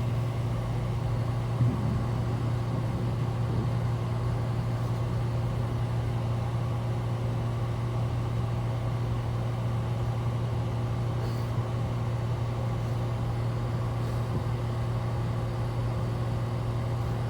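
Interior of an IC RE school bus under way: its rear-mounted MaxxForce DT diesel engine runs with a steady low drone, mixed with road noise in the cabin.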